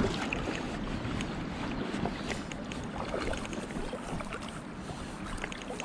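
Moving water, with small irregular splashes and trickles over a steady rush, and wind buffeting the microphone.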